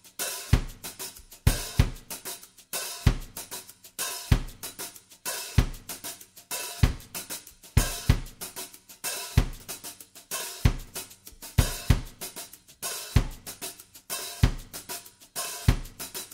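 Background music: a drum kit playing a steady beat on kick drum, snare and hi-hat, with no other instruments clearly heard.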